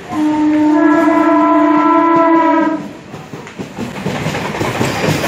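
Indian Railways suburban EMU train sounding one long horn blast of nearly three seconds that cuts off sharply. Then its coaches rush past close by, the wheel-on-rail clatter building.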